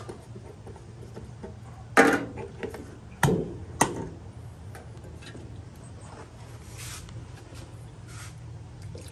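A square metal tin being picked up and handled on a wooden table among plastic cups: a clank about two seconds in, then two sharp knocks a little over a second later, over a faint steady hum.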